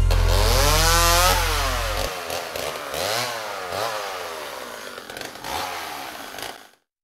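Small high-revving engine, such as a nitro RC engine, revving up and down several times and fading, under a held low music chord that stops about two seconds in. It cuts off abruptly near the end.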